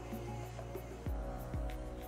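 Background music with a steady beat: deep bass drum hits that slide down in pitch, over a quick high ticking.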